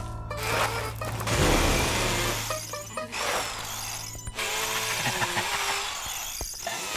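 Cordless power drill whirring as it bores through a stone wall, with crumbling and cracking of stone, over background music. The drill's steady hum fades out about five seconds in.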